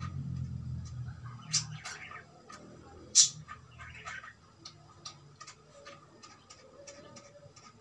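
Irregular small clicks and taps, two of them sharper about a second and a half and three seconds in, with a few soft chirps from a cockatiel.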